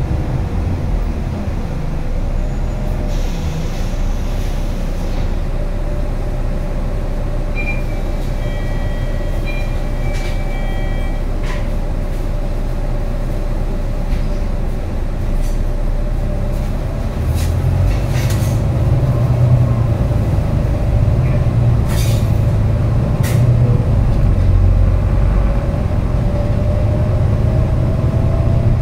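Volvo B9TL double-decker bus with a ZF Ecolife 6-speed automatic gearbox running, heard from a passenger seat: a steady engine and transmission drone with road noise. About two thirds of the way in it grows louder and deeper as the bus picks up speed, and near the end a whine rises in pitch; a few short high beeps sound about a third of the way in, and there are scattered clicks and rattles.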